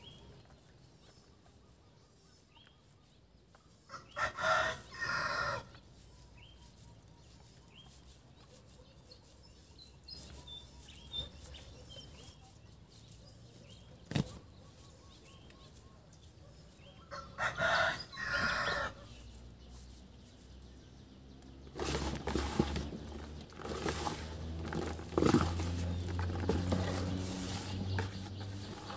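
A rooster crows twice, about four seconds in and again about seventeen seconds in, over a quiet background. In the last seven seconds a louder, lower-pitched sound takes over.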